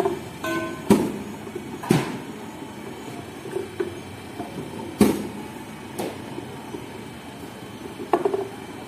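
Cricket bowling machine running with its automatic ball feeder, a steady mechanical running noise broken by sharp knocks as balls are fed and shot out. The knocks come about a second apart at first, then a few seconds apart.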